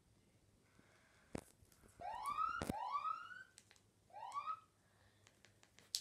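Countdown timer's end alarm played through a TV as the timer hits zero: three rising electronic whoops, the first two back to back and the third after a short pause. A few sharp clicks come before and around them.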